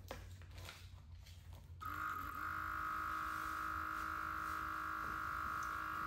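HyperSmoke automotive smoke machine switching on about two seconds in, its built-in air compressor motor running with a steady, even whine, set to its low-pressure EVAP mode.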